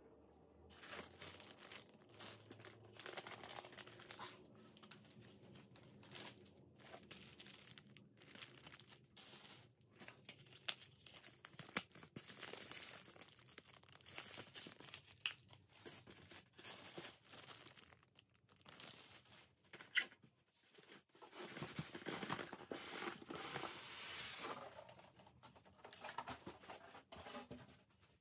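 Plastic packaging bags and packing being handled and unwrapped, with irregular rustling and small knocks, and a louder stretch of rustling about three quarters of the way through.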